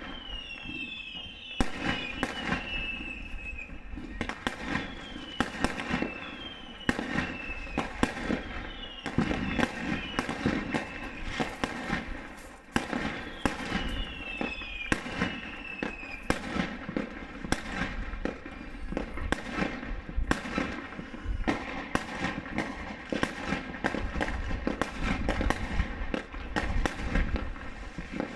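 Many aerial fireworks going off at once: a continuous barrage of sharp bangs and crackles, with several whistles falling in pitch during the first half.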